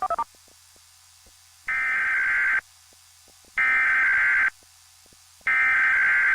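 Emergency Alert System SAME header: three bursts of digital data tones, each about a second long and about a second apart, after a quick stutter of short tones at the very start. The bursts carry the alert's coded header, which triggers the receiving equipment and marks the start of an alert.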